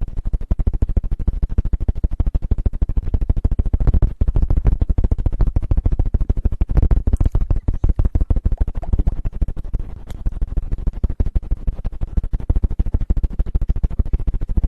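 ASMR 'helicopter' trigger: fast chopping pulses made right at the microphone, many a second and heavy in bass, swelling louder about four and seven seconds in.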